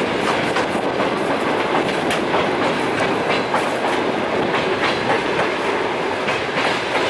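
Train rolling along heard from on board: a steady running rumble with wheels clicking irregularly over rail joints and switches.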